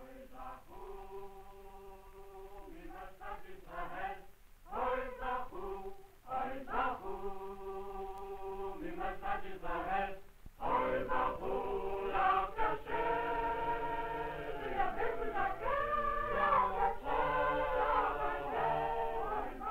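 A choir singing long held notes, fuller and louder from about halfway through.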